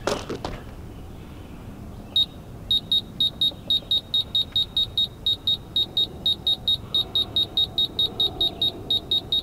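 Electronic beeps from a compressor-powered tennis ball launcher's control as its power setting is stepped up to 100%: one beep about two seconds in, then a quick even run of short high beeps at about four a second.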